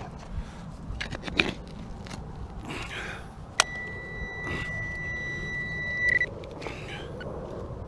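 A metal detector's steady high tone sounds for about two and a half seconds, starting with a click about halfway through, signalling metal under the coil. Around it come short scrapes and clicks.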